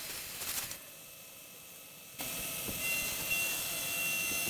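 A brush sweeping aluminium chips off a milling machine's table in a few quick strokes. About two seconds in, a Bridgeport milling machine's end mill starts cutting aluminium, a steady hiss with a thin high whine.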